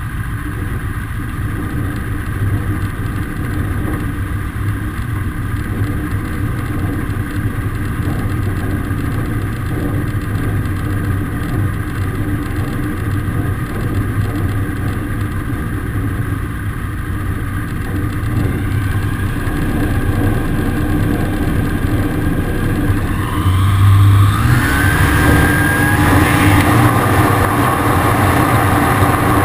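Zenair CH 701 ultralight's engine and propeller running at idle with a steady hum. Near the end the engine speeds up and gets louder as power is added.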